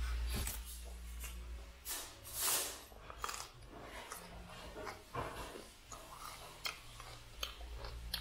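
Raw broccoli being chewed close to the microphone: irregular crunches and mouth clicks, with one longer, louder rustling burst about two and a half seconds in.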